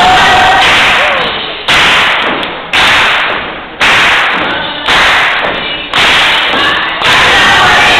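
A gospel choir singing, broken by loud thuds about once a second, six in all, each cutting in suddenly and dying away, with the voices faint between them.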